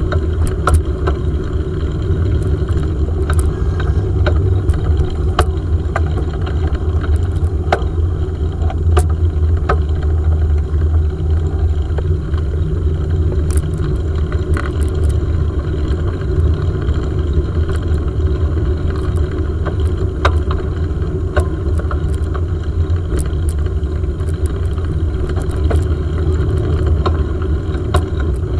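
Bicycle rolling along a paved path, heard through a handlebar-mounted camera: a steady low rumble of tyres and frame vibration, with scattered light clicks and rattles.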